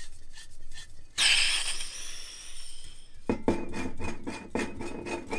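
A screw-thread EN417 gas cartridge being unscrewed by hand from a hose regulator: light clicking of the threads, then about a second in a short loud hiss of gas as the seal parts, fading over a couple of seconds. The hiss stops because the cartridge's check valve shuts. The turning then goes on as a squeaky rubbing scrape of the metal threads.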